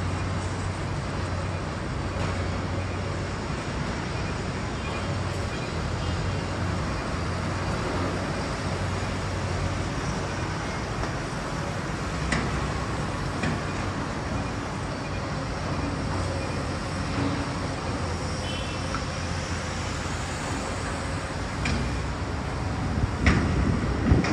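Steady city street noise, mostly road traffic running past, with a low hum underneath. A few sharp clicks and knocks stand out, the loudest near the end.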